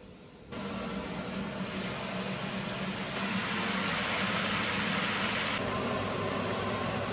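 Peppers, onions and tomato sizzling in a frying pan while a spatula stirs them, over a steady low machine hum. It starts about half a second in, and the sizzle is loudest in the middle.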